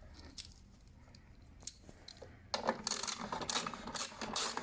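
Ratchet wrench tightening a wheel bolt: a few single clicks, then from about halfway in a quick steady run of ratchet clicks, about five or six a second.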